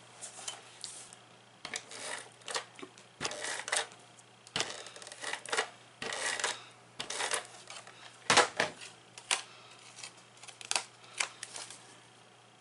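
ATG adhesive tape gun being run in short strokes to lay adhesive on the back of a paper tag: a string of irregular clicks and rasps.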